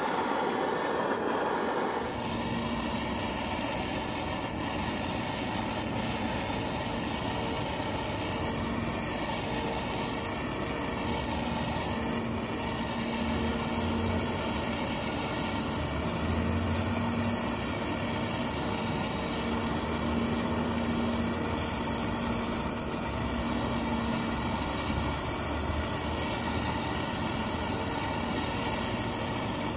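A hand-held propane torch burning with a steady hiss, played on the generator tube of a 1970s Coleman 425E camp stove, while the stove's diesel-fed burner flares with a ragged yellow flame. The generator is not getting hot enough to vaporise the diesel for a stable blue flame. The noise changes character about two seconds in, and uneven low rumbles come and go.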